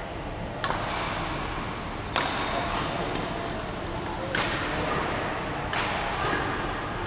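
Badminton rackets striking a shuttlecock in a rally: four sharp smacks roughly a second and a half apart, each with a short hall echo.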